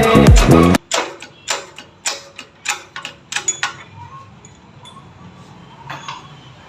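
Background music cuts off under a second in, followed by a run of about ten sharp metallic taps and clinks over roughly three seconds, as tools and engine parts knock on metal. After that, quieter handling with a single knock near the end.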